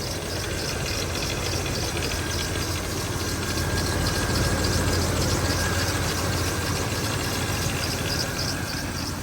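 1989 GMC Sierra engine idling steadily, with a fast, even rattle from a belt-drive pulley that the owner calls "rattling like hell" and suspects is loose.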